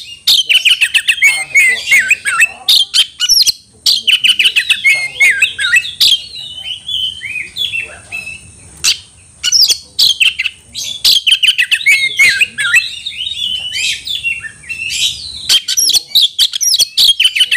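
Oriental magpie-robin (kacer) singing in full voice: a loud, fast, varied song of whistles and harsh, clicky notes in long runs, with short breaks about 3.5 and 9 seconds in. This is a bird in aroused, combative song, out to challenge a rival.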